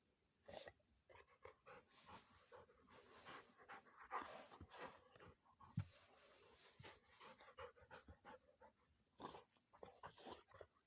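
A dog panting faintly in quick, uneven breaths, with a single short low thump a little past halfway.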